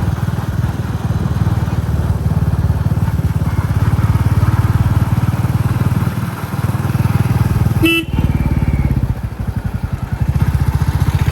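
Royal Enfield Classic 350's single-cylinder engine thumping steadily under way, its exhaust beats a fast low pulse. A short horn beep about eight seconds in, after which the beats slow and soften, then pick up again near the end.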